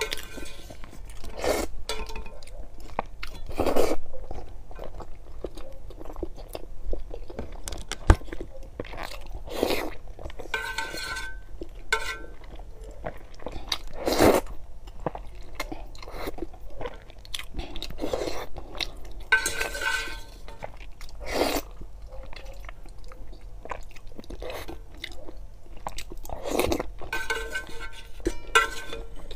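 Close-miked eating sounds: glass noodles of sour-and-spicy suanlafen slurped in short loud slurps, with wet chewing of noodles and boiled eggs between them.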